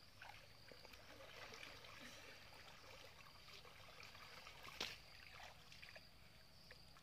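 Near silence, with faint, soft splashing and trickling of river water around men wading waist-deep, and one brief sharper splash about five seconds in.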